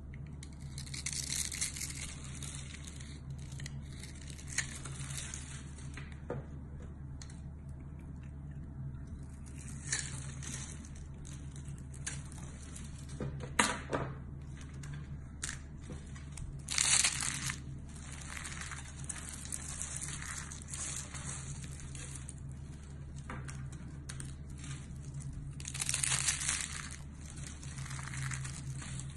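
Bar soap being cut and scraped with a utility knife blade, then soap shavings and curls being crushed and squeezed by hand. The scraping and crumbly crunching come in irregular bursts, with a few sharp clicks about halfway through, over a steady low hum.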